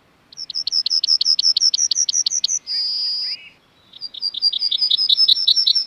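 Yellowhammer singing: a fast run of about a dozen repeated high notes ending in one long drawn-out note, then a second run of repeated notes starts about a second later.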